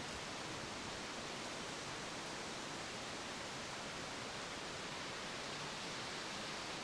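Steady, even rushing of Taughannock Falls, a tall plunge waterfall, heard across the gorge.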